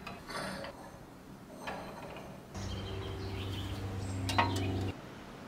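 Light metallic clinks as the cast-iron grain mill's crank handle is fitted onto its spring-loaded shaft. About halfway through, a steady low hum starts, with a sharp click near the end, and it cuts off suddenly.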